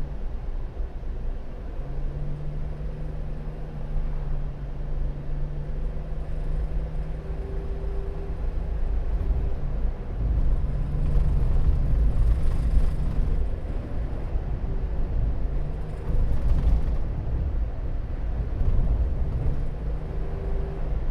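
Suzuki Every Wagon DA17W's turbocharged three-cylinder engine running under way over a steady low road rumble, its engine note swelling and easing a few times. It is the van in which the owner hears an abnormal rattling, 'karakara, garagara', from around 3000 rpm.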